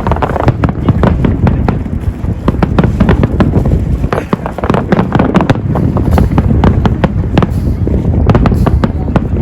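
Firework display: a dense, irregular run of bangs and crackles over a continuous low rumble.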